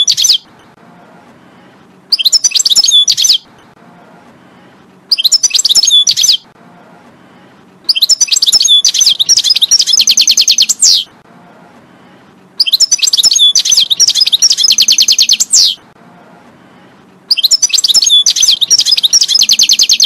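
European goldfinch singing a series of twittering song phrases, each one to three seconds long, with short pauses between them. The longer phrases end in a fast trill of repeated notes. A faint low hum sits under the pauses.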